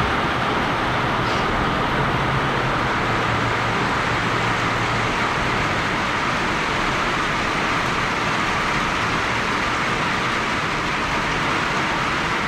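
Steady rain falling on the translucent panel roof of a glazed enclosure, heard from underneath.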